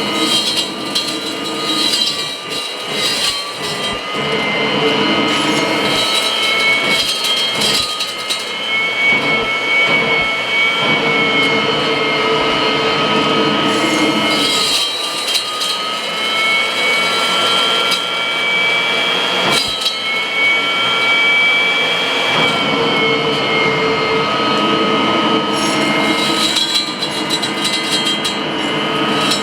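Kirby vacuum cleaner running with the hose attached: a loud, steady motor whine whose pitch shifts a few times, with scattered sharp clicks and rattles of dry food such as beans, rice and pasta being sucked through.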